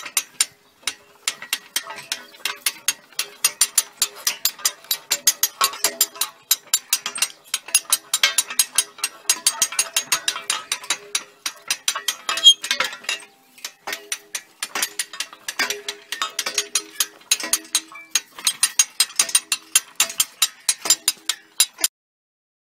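Ratchet of a hand-operated hoist clicking rapidly in runs, with short pauses, as the tubewell pipe is hoisted on its cable. The clicking stops suddenly about a second before the end.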